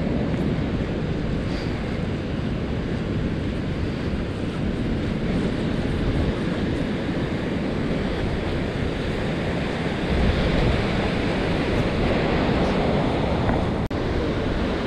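Steady rush of ocean water and small surf, with wind buffeting the microphone.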